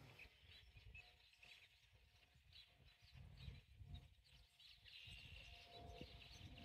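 Near silence with faint bird chirps.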